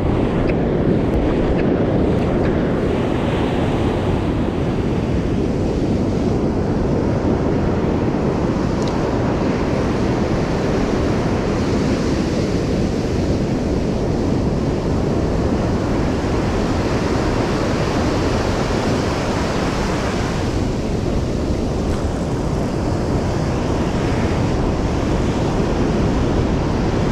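Ocean surf breaking and washing up a sandy beach, a steady rush of water, with wind buffeting the microphone.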